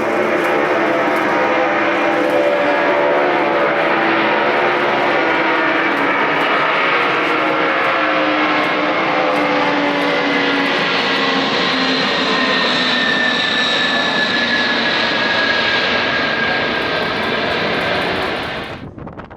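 Airliner engines heard loud and close as the aircraft passes, with several tones in the engine noise falling slowly in pitch. The sound cuts off abruptly near the end.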